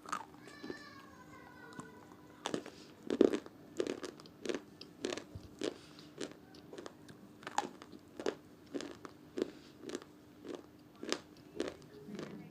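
White slate pencil chips being bitten and chewed: a steady run of sharp crunches, about one and a half a second, starting a couple of seconds in.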